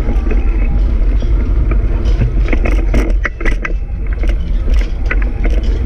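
Low rumbling wind and rolling noise on a camera riding a bicycle through a street, with a run of sharp clicks and rattles from about two seconds in.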